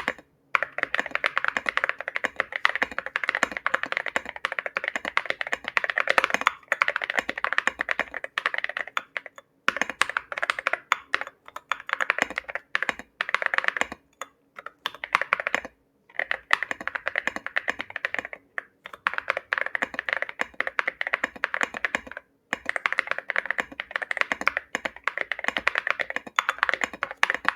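Typing test on a mechanical keyboard fitted with KTT Hyacinth linear switches: a fast, steady run of keystroke clacks, broken by a few short pauses.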